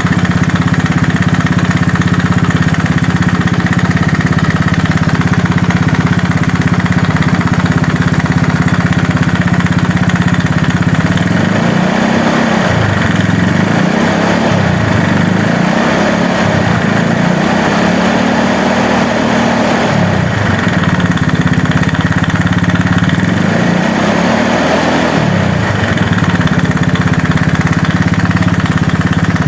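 Small scooter engine idling steadily. Between about twelve and twenty-six seconds in, the throttle is blipped about five times, the engine pitch rising and falling with each blip, then it settles back to idle.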